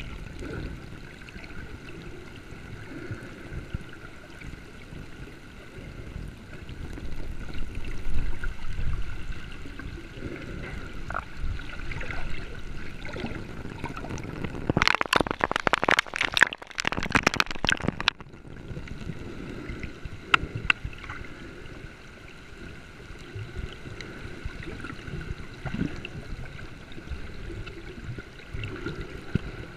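Water gurgling and sloshing with a faint steady hum, and a burst of splashing crackle about halfway through that lasts around three seconds.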